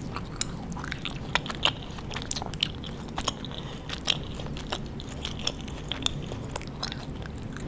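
A person chewing crunchy candy with the mouth closed, close to the microphone: irregular sharp crunches and clicks.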